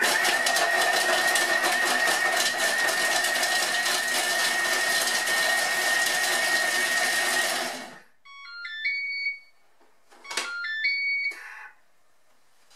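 Thermomix blade running at speed 6 for about eight seconds, chopping dried tomatoes, garlic and herbs, with a steady high whine over the motor noise; it stops abruptly. Afterwards the machine sounds two short runs of beeps that step through different pitches, signalling that the timer has run out.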